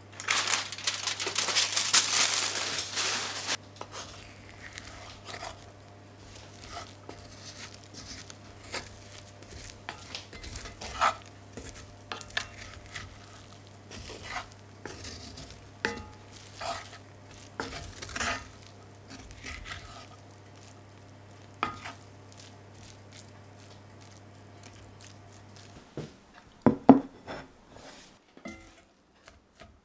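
Aluminium foil crinkling loudly for about three seconds as it is peeled off a hot cast iron skillet. Then the freshly baked rice in the skillet sizzles and crackles with scattered small pops. Near the end a ceramic plate is set down on a wooden table with a couple of knocks.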